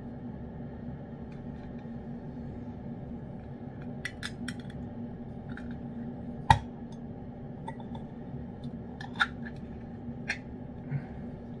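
Small metal cat-food tin being pulled open by its lid: a few sharp clicks, the loudest about six and a half seconds in, and smaller ones later as the lid is peeled back. A steady low hum runs underneath.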